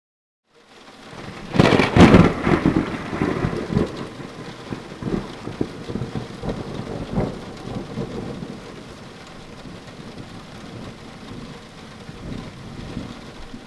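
Thunderstorm: a loud thunderclap about a second and a half in, rumbling on for several seconds, over steady rain.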